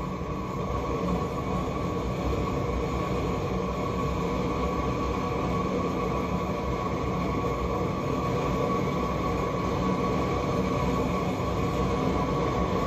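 Big propane torch burning with its flame turned up high: a steady rushing roar that grows a little louder over the first second, then holds.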